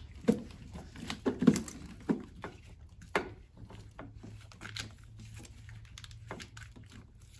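Hands working in a car's engine bay, moving and securing a rubber fuel hose with a bungee cord: scattered light knocks and taps, several in the first three seconds, then softer rustling and clicks. A low steady hum runs underneath.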